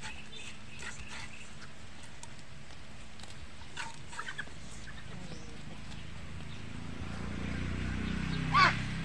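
A flock of ducks and chickens foraging, with scattered short calls and one loud squawk near the end. A low rumble builds in the last couple of seconds.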